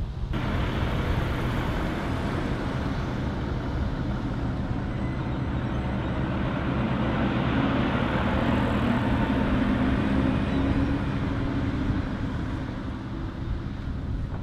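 Heavy articulated lorries passing close by one after another, a DAF tractor unit and then a Volvo FH. Their diesel engines run under load with tyre noise from the road. The sound is loudest a little past halfway, as the Volvo goes by, then fades.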